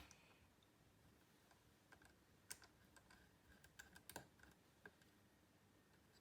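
Faint, scattered small clicks and ticks of a precision screwdriver with a T4 Torx bit working the tiny screws that hold the memory heat sink.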